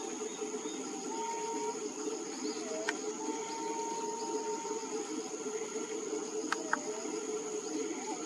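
Whistling green pigeon calling in soft, drawn-out whistles: a short one about a second in, then a dipping note that levels into a long steady whistle, and a shorter dip near the end. Under it runs a steady dense background drone with a constant high thin whine, and two or three sharp clicks.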